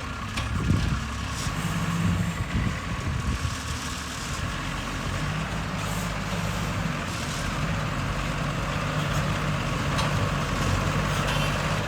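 Heavy diesel engine running steadily, a low even drone, with a few faint knocks.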